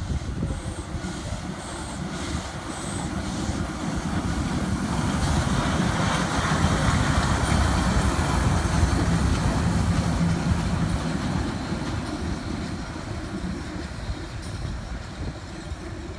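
SNCF 241-A class 4-8-2 steam locomotive 241 A 65 running light past at low speed. Its rumble and steam hiss grow louder as it comes close around the middle, then fade as it moves away.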